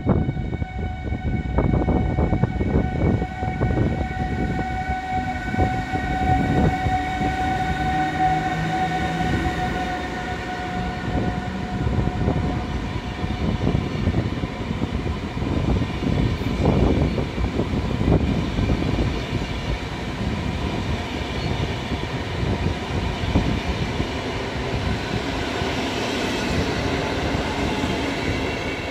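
Passenger train hauled by a Newag Griffin (EU160) electric locomotive pulling away and rolling past at low speed: a steady rumble of coach wheels with repeated clicks over rail joints. Several steady electrical whines sound above it, and one tone rises in pitch a few seconds in as the train gathers speed.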